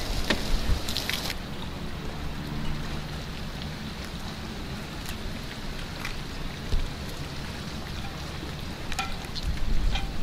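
Wind buffeting the microphone, with gusts near the start and again near the end, over a low rumble. A few sharp clicks and knocks come from fish being handled and cut on a plastic table.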